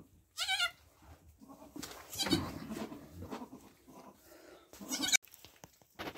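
Newborn Nigerian Dwarf goat kid bleating, three short high wavering calls, with soft rustling in the hay bedding between them.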